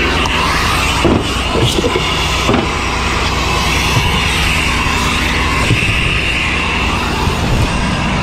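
Heavy truck's diesel engine running steadily, with a few short knocks between about one and two and a half seconds in.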